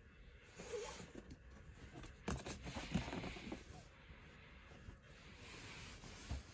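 A cardboard toy box with a plastic window being handled and turned over in the hands: faint rustling and scuffing, with a few sharp clicks about two to three seconds in.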